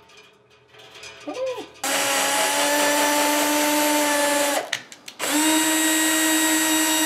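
Electric drill motor running at a steady speed in two runs of about three seconds each, with a half-second stop between them and a short blip of the trigger just before the first.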